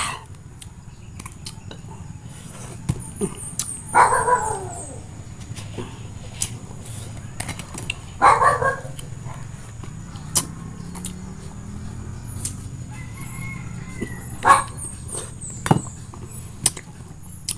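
Two drawn-out animal calls, each about a second long, about four and eight seconds in, with a short run of high chirps just before the first and scattered small clicks.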